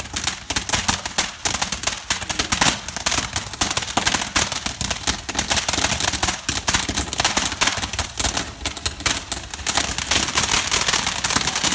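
Fireworks crackling loudly and without a break: many sharp pops a second, packed close together.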